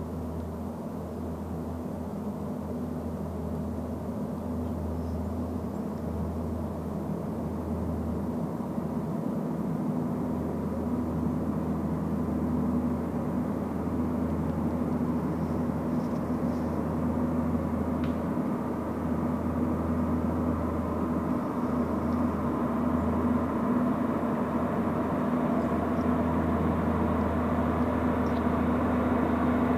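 Diesel train's engine drone, growing steadily louder as the train approaches.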